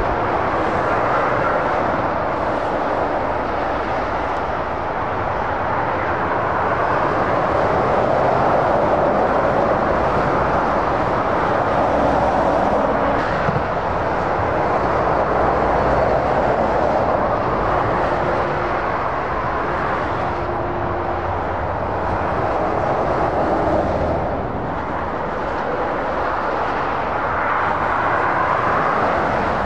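Dense motorway traffic: lorries and cars passing at speed, a steady tyre roar that swells and eases as vehicles go by, under a low diesel engine drone.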